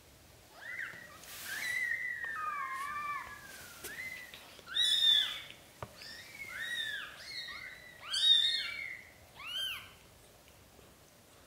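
Newborn British Shorthair kittens mewing: many short, high-pitched squeaks that rise and fall in pitch, several overlapping, loudest about halfway through and again near the end before they stop.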